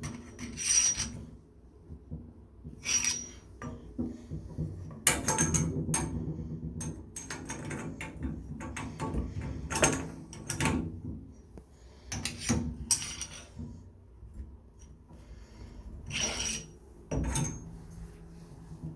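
Irregular metal clinks, knocks and scraping of hand tools on faucet fittings as replacement valve stems are put in and tightened.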